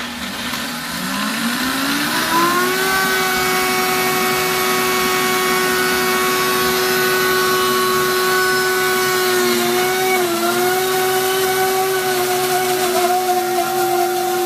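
Vitamix blender motor spinning up over the first two seconds or so to a steady high whine as it blends basil pesto, with olive oil being poured in slowly while it runs. The pitch dips briefly about ten seconds in, then settles again.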